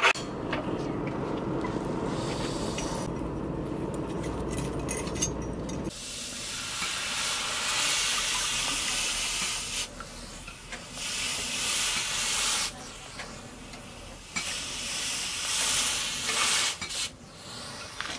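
A hot steel axe head, held in tongs, is quenched in a trough of water to harden it. It sizzles and hisses in three bursts a few seconds long as it is dipped and moved about, after a steadier, lower rushing noise in the first six seconds.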